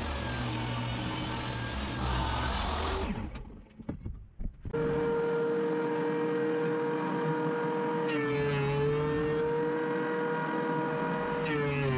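A table saw runs for the first three seconds, ripping poplar boards to width. After a brief drop, a benchtop thickness planer runs with a steady whine. Its pitch sags twice as boards feed through and load the motor.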